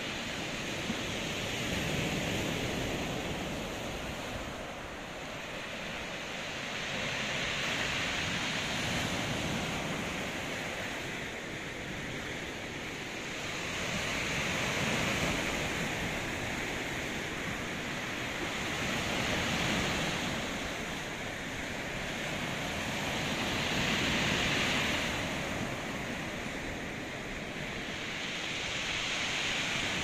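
Sea surf breaking on the shore: a continuous rush of waves that swells and fades every four or five seconds as each wave comes in.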